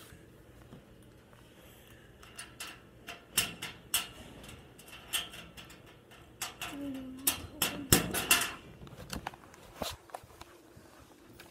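Scattered clicks, knocks and rubbing of a phone being handled, its microphone brushing against clothing, with a few voice fragments among them.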